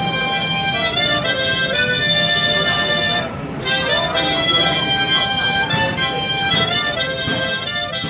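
Background music: a melody of held notes, steady in loudness.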